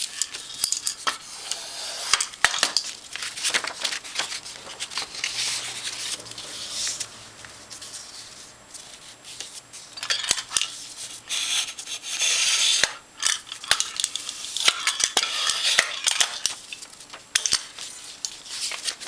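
Construction paper rustling and sliding across a glass tabletop as it is folded and creased, with many sharp clicks and knocks on the tabletop.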